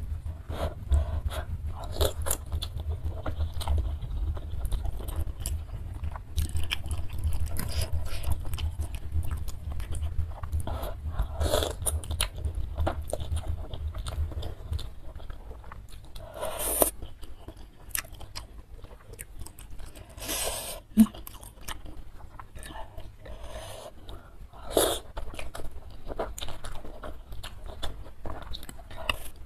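Close-miked eating of Samyang instant noodles in broth: wet chewing and mouth clicks, with several longer slurps as forkfuls of noodles are drawn in.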